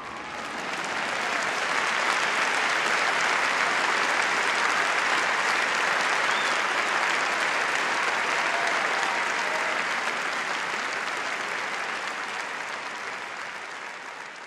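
Audience applauding at the end of a performance. The clapping swells over the first couple of seconds, holds steady, and tapers off near the end.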